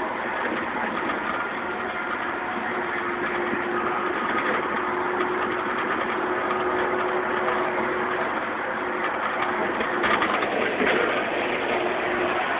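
Mercedes-Benz O405N city bus driving, heard from inside the cabin: steady engine and road noise with a faint held whine. About ten seconds in there is a brief louder rattle.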